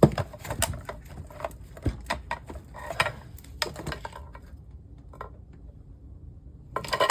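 Back plane of an LCD monitor being pried and pulled off: a string of sharp clicks and knocks over the first four seconds, then a brief clatter near the end.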